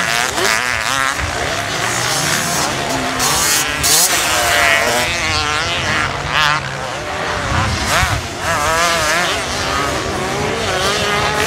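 Several motocross bikes running on the track, their engine notes overlapping and rising and falling as the riders open and close the throttle.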